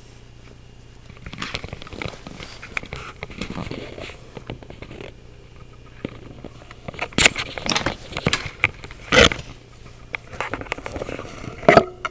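Logitech webcam's built-in microphone picking up close-up crackling, clicking and scraping noises over its steady low hum, with three loud, distorted peaks: about seven seconds in, about nine seconds in, and near the end.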